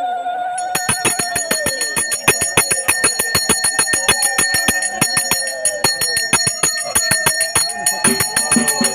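Ritual bells struck rapidly and without pause, several strokes a second, their metal ringing on. The strokes thicken about a second in, over a held, wavering tone.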